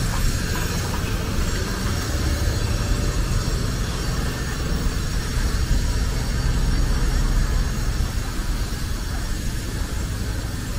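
Busy street traffic: a steady low rumble of engines and tyres from passing cars, a city bus and scooters.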